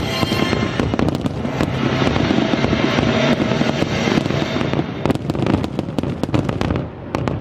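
Fireworks display: a dense run of booming bursts and sharp crackles, thinning briefly near the end, with show music faintly underneath at first.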